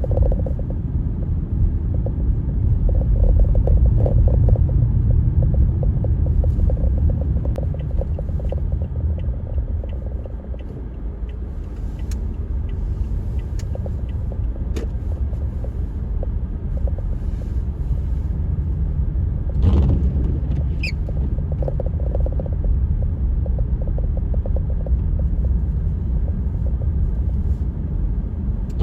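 Blizzard wind gusting across the microphone as a deep, uneven rumble that swells and eases, with scattered small ticks.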